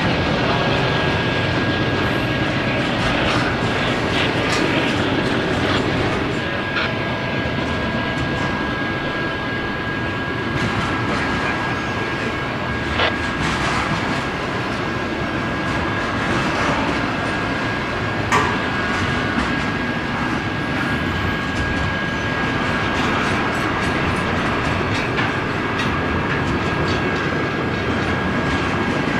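Double-stack intermodal freight cars rolling past close by: a steady rumble of steel wheels on rail with a clickety-clack over the joints and a thin steady high whine running through it. A couple of sharper clanks stand out midway.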